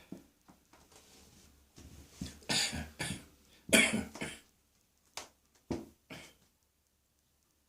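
A person in a coughing fit: a rapid run of harsh coughs, loudest about four seconds in, then three single coughs about half a second apart.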